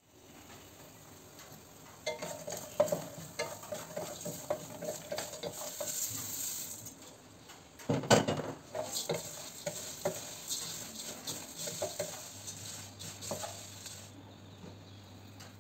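Oil sizzling in a stainless steel pan while a wooden spatula stirs and scrapes, with repeated clicks and knocks; the stirring is loudest about eight seconds in, once puffed rice is in the pan. The high hiss drops out near the end as the gas is turned off.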